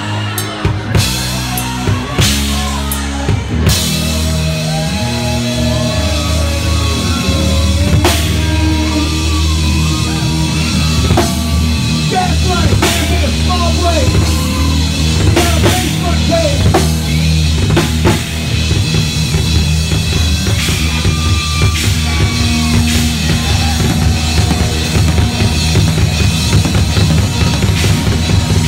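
Live rock band playing, with a drum kit keeping a busy beat of frequent hits over held bass notes and a lead line that bends in pitch.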